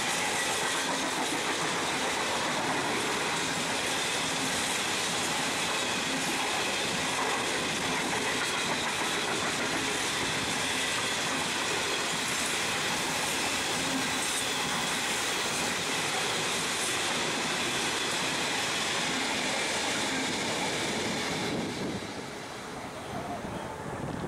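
A freight train's hopper wagons rolling past on the track: a steady rumble and clatter of steel wheels on the rails. It drops away sharply about 21 seconds in as the last wagon passes.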